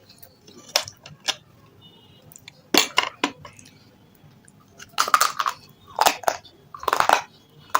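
A person biting and crunching hard, brittle chunks of red sel stone, in short clusters of crisp, crackly crunches a second or so apart.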